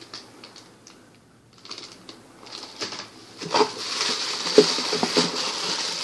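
Clear plastic packaging bags crinkling and rustling as they are handled in a cardboard box, with a few light knocks. Nearly quiet for the first second and a half, then the crinkling builds and runs on steadily from about three and a half seconds in.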